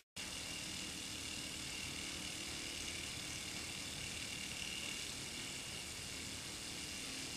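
Brass aeolipile (Hero's steam engine) spinning at high speed on its steam jets, somewhere around 2,000 to 3,000 RPM: a steady whir and hiss with a high, even whine on top. There is a brief dropout right at the start.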